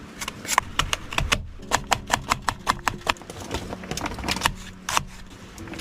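Irregular clicks and taps, several a second, from handling food and cooking gear while putting together a foil-wrapped camp dinner.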